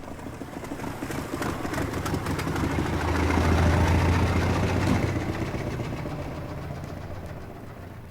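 Model T Ford engine running as the car passes, building up to its loudest around the middle and then fading away.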